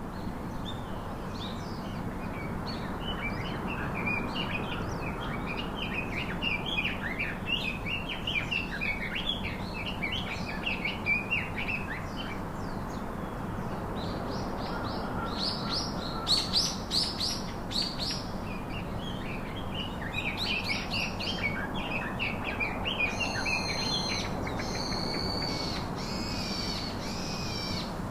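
Several birds chirping and singing over a steady background hiss, with a louder flurry of high calls about halfway through. Near the end, one bird repeats a fuller call of several stacked notes about every second and a half.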